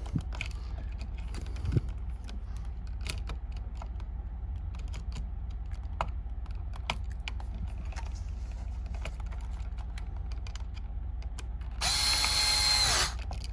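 Light clicking and ticking from hand tools and wire while the last wire is fastened to the outlet's terminal screw, then a cordless power screwdriver runs for about a second near the end, its whine dropping as it stops.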